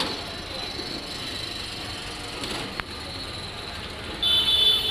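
Steady street traffic noise, with a single sharp click in the middle and a short, high-pitched vehicle horn toot near the end.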